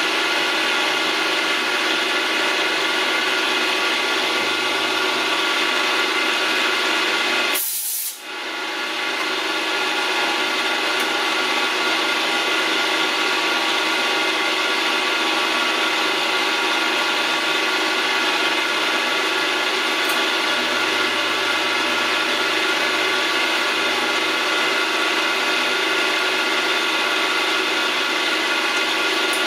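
Milling machine running steadily, its cutter machining a small mixture screw held in a six-jaw chuck. The sound breaks off briefly about eight seconds in.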